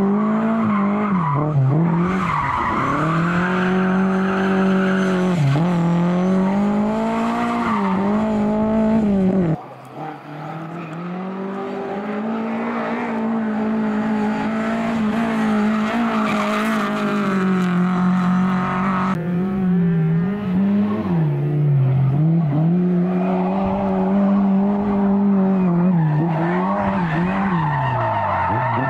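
Rally car engine revving hard, its pitch climbing and dropping again and again through gear changes and lifts, with tyres squealing as the car slides. About ten seconds in the sound cuts off sharply and another run starts, quieter at first and building back up.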